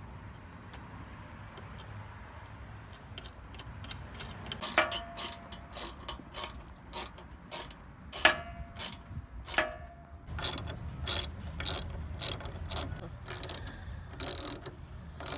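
Ratchet wrench clicking as the running-board bracket bolts are tightened, with a few ringing metal clinks in the middle; the clicks start sparse and come faster and louder from about ten seconds in.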